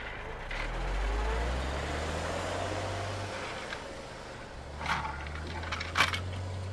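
Die-cast toy tow truck and toy car rolling across a plastic playset, a low rumbling of small wheels on the plastic road. Two sharp clacks of the toys knocking against the plastic near the end, the second louder.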